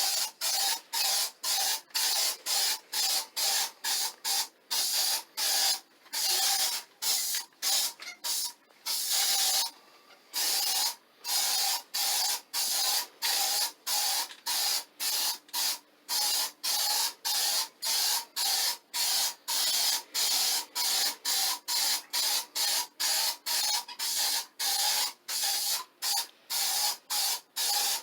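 Kilz Upshot aerosol stain-sealing primer spraying in quick short bursts, about two a second: a hiss with a faint whistle from the nozzle. There is a brief pause about ten seconds in.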